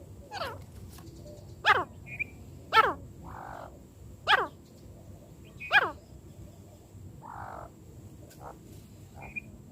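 Francolin (teetar) calling: five loud, sharp notes, each sweeping quickly down in pitch, repeated about every second and a half, with a few short high chirps in between.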